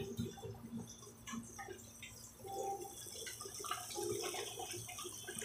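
A breaded catfish fillet frying in a pot of hot oil, sizzling.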